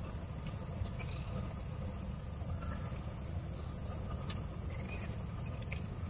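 Steady outdoor background: a low rumble with a steady high insect hiss, and a few faint short chirps scattered through it.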